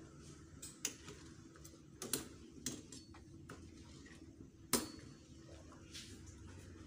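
A metal ladle stirring soup in a stainless steel pot, clinking against the pot's rim and sides several times, with the loudest knock about two-thirds of the way through.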